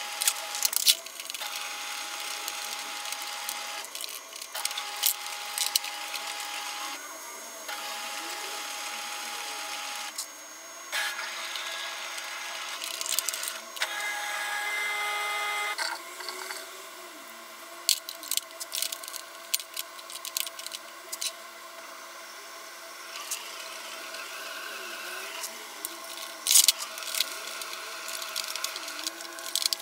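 Handling sounds of a robot vacuum being cleaned: scattered plastic clicks and knocks as its brush and covers are taken out and put back, over a steady hum.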